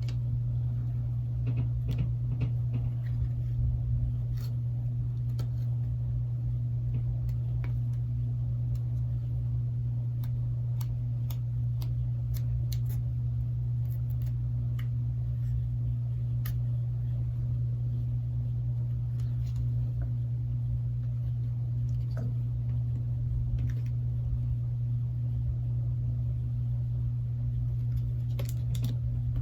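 Steady low hum throughout, with scattered faint clicks and taps from small parts and tools being handled during a phone repair.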